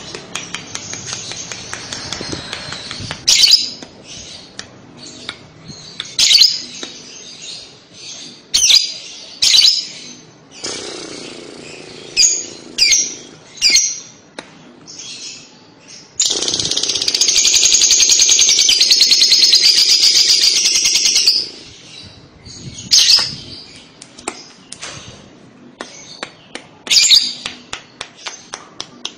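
Fischer's lovebird calling with sharp, high chirps in quick runs. About halfway through it breaks into one long, rapid chattering trill lasting about five seconds: the 'ngekek' chatter that bird keepers play to lure other lovebirds into answering.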